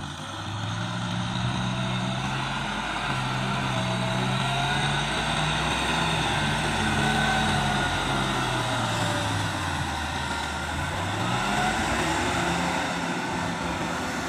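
Kubota M6040SU tractor's four-cylinder diesel engine running steadily, its note shifting up and down, dipping about ten seconds in and rising again.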